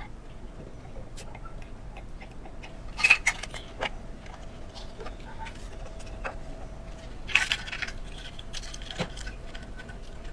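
Small metal parts clicking and clinking as they are handled, with two louder clusters of clinks about three seconds in and again near seven and a half seconds.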